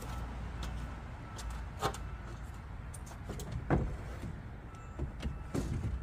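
A few sharp knocks and clatters, the loudest about two seconds and nearly four seconds in, over a low steady rumble.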